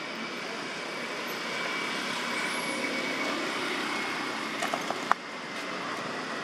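Steady outdoor background noise, with a thin high tone through the first few seconds and a few sharp clicks about five seconds in.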